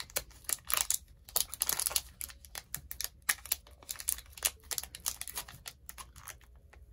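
Foil booster-pack wrapper crinkling and crackling in the hands as an irregular run of quick, sharp crackles, while the pack is handled and worked at to get it open.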